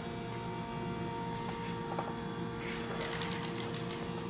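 Hand socket ratchet clicking in short quick runs from about three seconds in, as a nut is turned, over a steady electrical hum.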